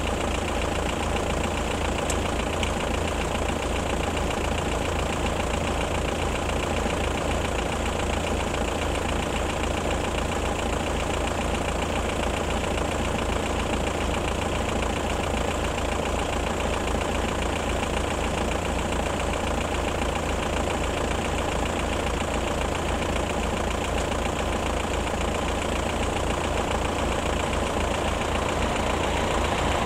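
Electric level-crossing warning bell (AŽD ZV-01) ringing continuously in rapid, evenly spaced strikes while the crossing is closed. Near the end an approaching train begins to grow louder.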